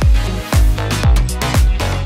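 Background dance music with a steady kick drum, about two beats a second.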